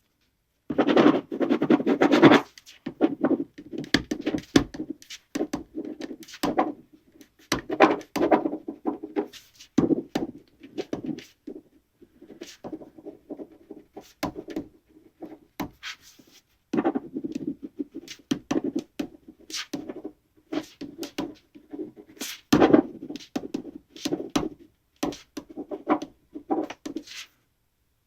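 Pen writing on paper: quick, irregular scratching strokes in runs with short pauses between them.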